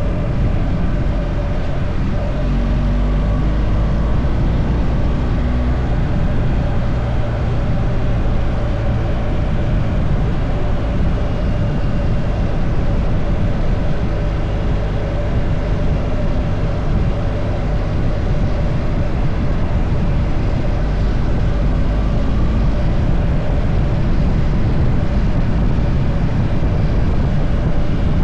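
Car on the move: steady engine and road rumble, with the engine note rising and falling a few seconds in.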